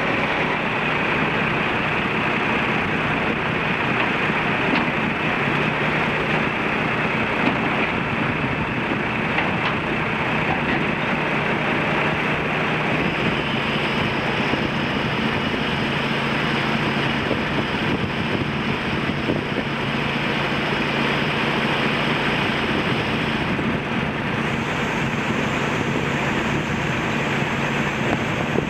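Diesel engine of a 1988 White Expediter truck running steadily while its hydraulic Haying Mantis bale bed tilts up. A faint high whine comes in about halfway through and stops a few seconds before the end.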